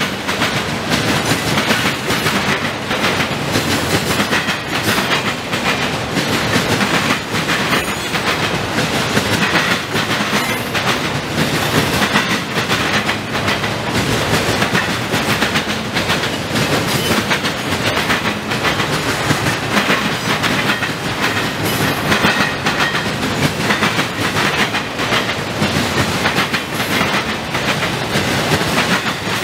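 Railroad cars rolling past, their wheels clacking steadily and continuously over the rail joints.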